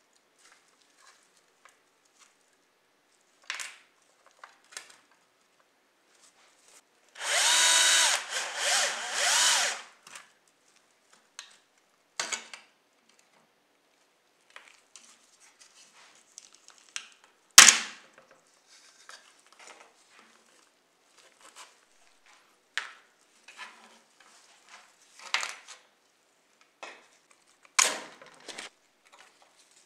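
Small electric screwdriver whirring for about two and a half seconds in short runs, backing out the screws of a die-cast model car. Around it come scattered clicks and knocks of small metal and plastic parts being handled and set down; the sharpest click is about halfway through.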